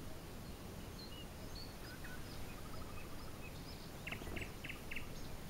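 Open-air ambience: a steady low background rumble, with faint chirps of small songbirds scattered through it and a quick run of about five short bird notes about four seconds in.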